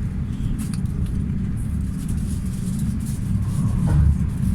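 Steady low rumble of a Class 745 electric multiple unit running along the track, heard from inside the carriage, swelling briefly about four seconds in.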